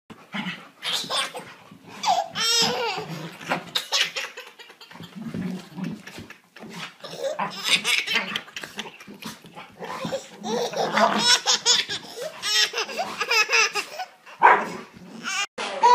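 Baby laughing hysterically in repeated fits, with short pauses between them.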